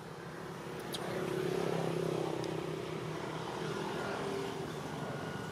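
Steady engine drone of a passing motor, swelling about a second in and easing off near the end, with a short high chirp about a second in.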